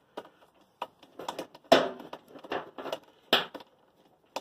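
Metal clicks and knocks of a spark-plug socket and new spark plug being handled and threaded in by hand on a small mower engine. A string of irregular clicks, the loudest a little under two seconds in.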